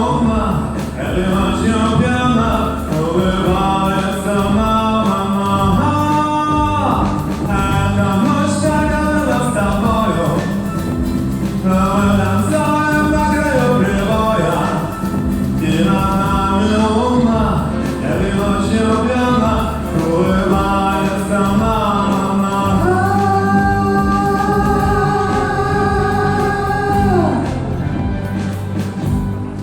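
Pop song with a singing voice over a backing track with steady bass. About three-quarters of the way through the voice holds one long note, then the song winds down near the end.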